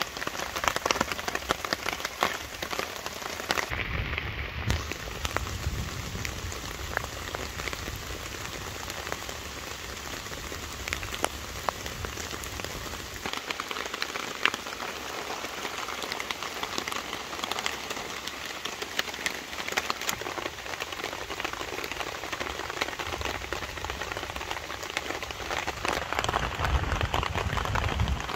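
Heavy rain falling on a tarp stretched overhead: a dense, steady patter of countless drops striking the sheet, growing a little louder near the end.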